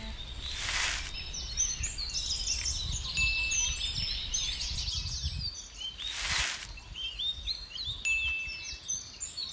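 A chorus of small birds chirping and twittering, with brief whistled notes. There are two short whooshes, one about a second in and one about six seconds in, over a low rumble.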